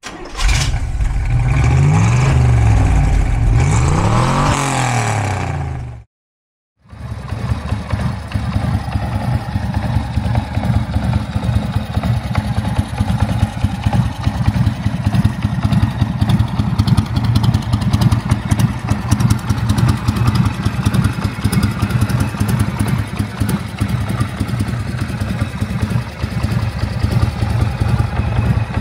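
1981 Harley-Davidson Wide Glide's 1340 cc Shovelhead V-twin revved twice, its pitch rising and falling each time. After a short break of silence about six seconds in, the engine idles steadily with a rapid, even beat.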